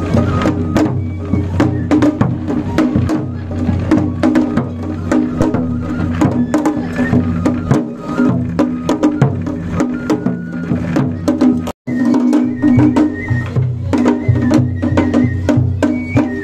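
Japanese festival music: a large rope-bound taiko drum on a festival cart struck with sticks in a fast, steady rhythm, with sharp clacking percussion and short high notes over it. The sound cuts out for an instant about twelve seconds in.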